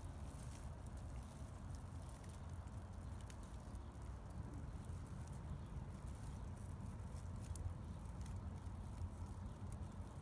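Faint rustling and light ticking of tall grass over a low, steady rumble.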